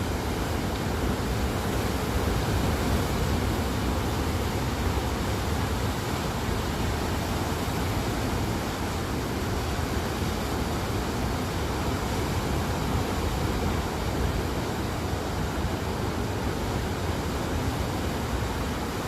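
Ocean surf washing over shoreline rocks: a continuous rushing sound with a deep rumble underneath, fairly even in level.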